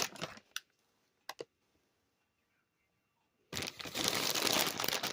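A few light clicks, then about two seconds of crinkling plastic from a bag of shredded cheese being handled and shaken out.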